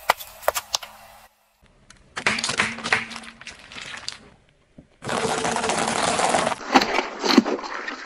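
Objects being crushed under a car tyre in several short cuts: sharp cracks and pops, then crunching, then a steady hiss about five seconds in, followed by more cracking and splatting near the end.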